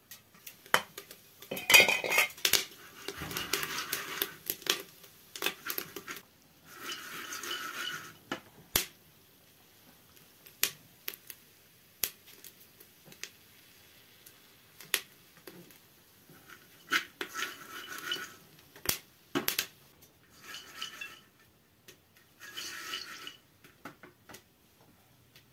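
Popcorn kernels rattling and sliding in a metal pot as it is shaken, in about six short bursts, between scattered sharp clinks and ticks.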